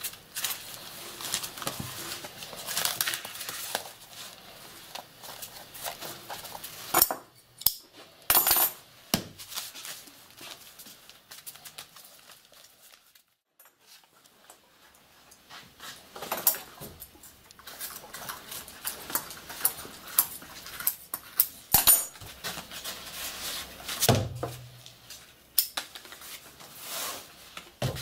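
Hand-work at a fireworks-making bench: paper shell casing and twine rustling and scraping under the hands, with scattered sharp taps and clinks as tools and parts are handled and set down. There is a near-silent gap about halfway through.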